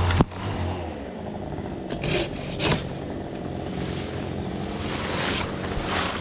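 Chainsaw engine idling, dropping low for most of the stretch and picking up again near the end. A sharp knock comes just after the start, and brief scraping noises follow.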